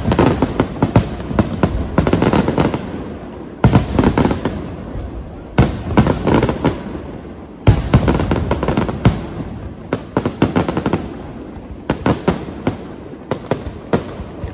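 Aerial firework shells bursting: a heavy bang every two seconds or so in the first half. Each bang is followed by trains of sharp pops, and rapid runs of pops fill the second half.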